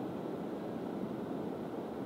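Steady low rushing background noise with no distinct events; the owl makes no sound.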